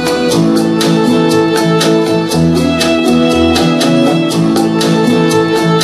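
Instrumental music with fiddle and guitar over a steady beat.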